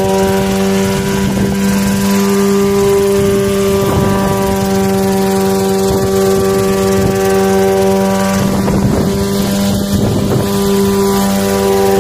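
Small single-seat coaxial helicopter hovering low: its engine and rotors give a loud, steady hum at one constant pitch, with a few brief gusts of wind noise on the microphone.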